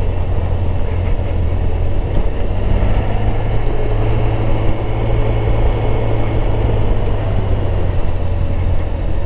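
Motorcycle engine running steadily at cruising speed, under the rush of wind and road noise picked up by a camera mounted on the bike.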